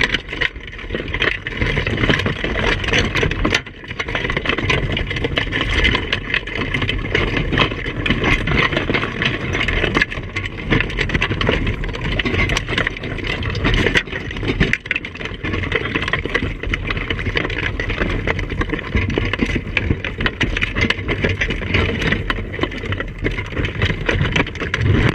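A boat engine idling under a steady clatter of crab shells and claws knocking and scraping against the wire of a crab pot as the crabs are pulled out by hand.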